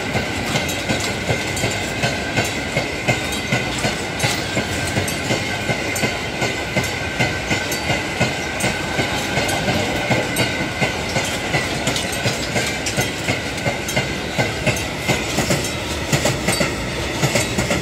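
Open-top freight wagons rolling past close by, their wheels clicking over the rail joints in a fast, even clickety-clack, with a steady high ringing whine underneath.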